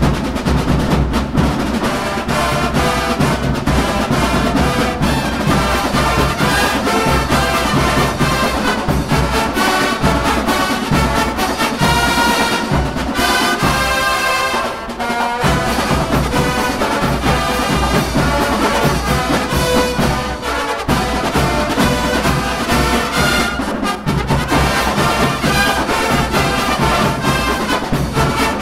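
Drum and bugle corps horn line playing a brass piece loudly, with a long held chord about halfway through.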